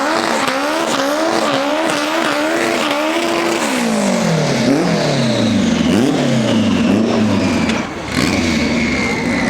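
Performance car engine revving hard on the track. Its pitch wavers quickly at first, then drops and swings up and down several times, with faint tyre squeal.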